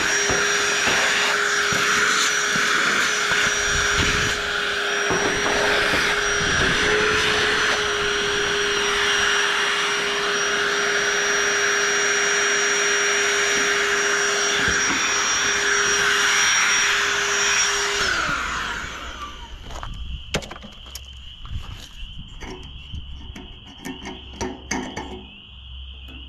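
A small electric motor with a vacuum- or blower-like whoosh and a steady hum runs evenly for about eighteen seconds, then winds down and stops. Light clicks and knocks of handling follow.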